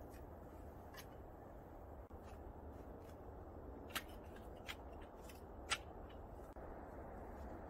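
A few short, sharp clicks and clinks of camp gear being handled, the loudest about six seconds in, over steady low background noise.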